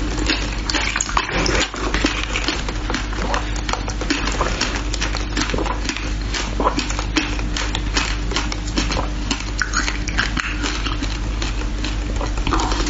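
Ice being crunched and chewed close to a clip-on microphone: a dense, unbroken run of sharp crackling crunches as a frozen block is bitten and ground between the teeth.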